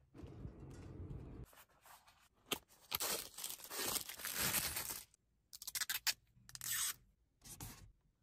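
Close handling noise of car accessories: loud crinkling and tearing of plastic and tissue-paper wrapping from about three to five seconds in, followed by clusters of short clicks and rustles.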